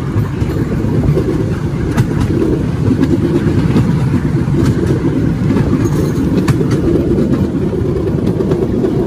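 Bamboo train running along the rails: a steady low rumble from its small engine and wheels, with a few sharp clicks.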